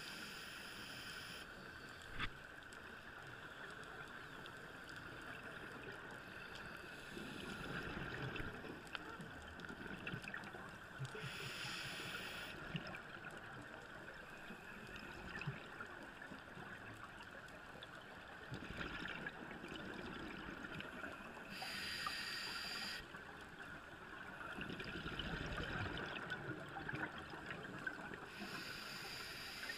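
Scuba diver breathing through a regulator, heard underwater: a short hissing inhale about every ten seconds, each followed some seconds later by the softer bubbling of the exhale, over a faint steady hum.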